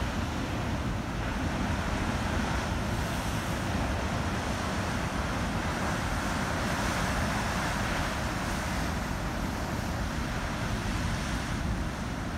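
Ocean surf breaking and washing over rocks: a steady rush of water, with wind buffeting the microphone.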